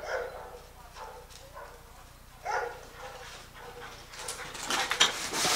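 Search-and-rescue dog barking twice, about two and a half seconds apart. From about four seconds in, a rustling, scraping noise grows louder.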